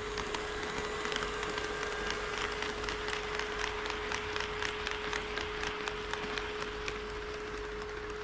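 HO scale model train running on KATO Unitrack, its wheels clicking over the rail joints at about three to four clicks a second. The clicks build about a second in and fade near the end, over a steady single tone.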